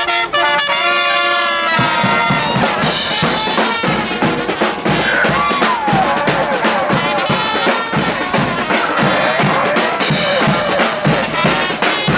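Brass marching band playing outdoors: trumpets and trombones hold a chord, then bass drum, snare drums and crash cymbals come in with a steady beat about two seconds in. A high wavering tone slides up and down over the band near the middle.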